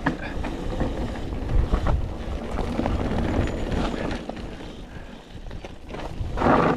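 Wind buffeting the microphone over the rumble and rattle of a mountain bike riding down a rough trail, with a few sharp knocks from the bike.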